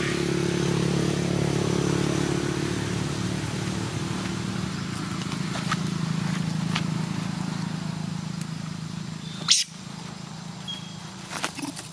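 A motor engine running steadily with a low, even hum, until a sharp click about nine and a half seconds in, after which it falls much quieter.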